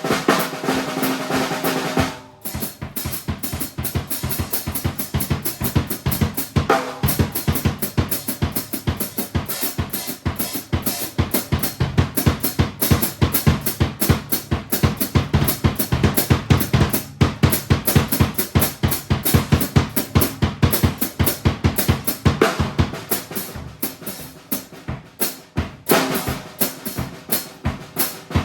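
Acoustic drum kit played in a fast improvised groove, with dense snare and bass drum strokes. A ringing wash opens the passage and returns near the end.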